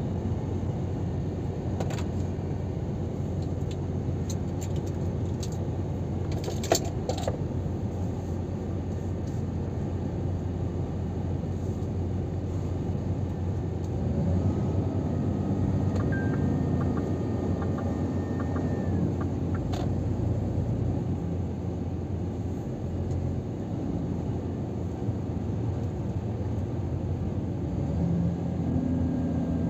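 Scania R500 truck cruising at motorway speed, heard from inside the cab: a steady low drone of engine and road noise, with a few light clicks and rattles from the cab and one sharp click about seven seconds in.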